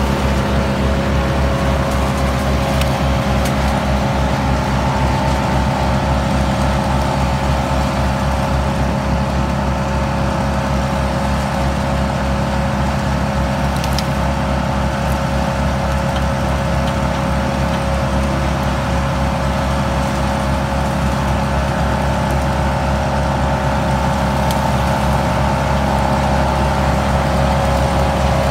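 Engines of tree-service machinery, a mini skid steer and a wood chipper, running steadily: a constant pitched drone that holds the same speed throughout, with a few faint clicks.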